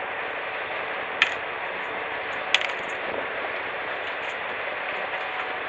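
Steady rushing noise on the open deck of a small fishing boat at sea, broken twice by a short sharp clink, about a second and a quarter apart.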